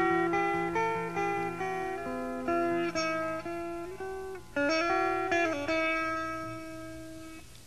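Music: a guitar picking a slow line of single notes, each ringing out and fading, with no drums.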